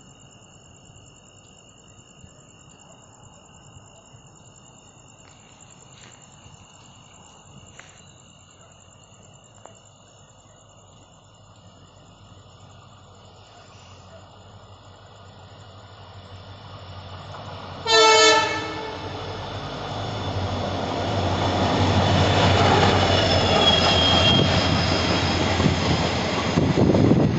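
WDG-4 (EMD) diesel locomotive hauling an express approaches, faint at first and then steadily louder. It gives one short, loud horn blast about 18 seconds in, then runs past at speed with a heavy rumble of engine and coaches, with a brief high wheel squeal.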